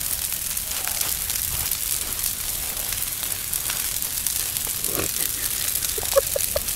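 Large fire burning steadily, with a dense crackle over a continuous hiss.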